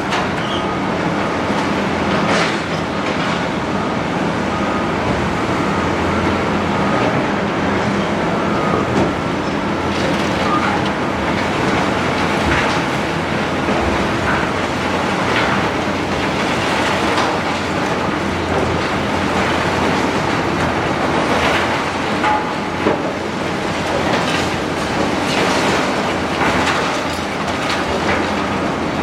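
Large Doosan excavator demolishing a building: its diesel engine and hydraulics run steadily under load, with irregular knocks and crunches of broken concrete and debris throughout.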